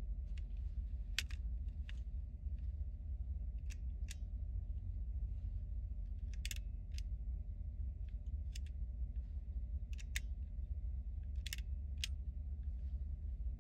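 Irregular sharp clicks and snaps of small plastic toy parts being handled and fitted, about a dozen scattered over the stretch, over a steady low hum.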